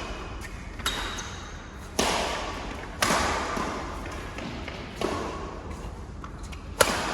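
Badminton rackets striking the shuttlecock in a doubles rally: five sharp smacks about one to two seconds apart, each ringing on briefly in an echoing hall.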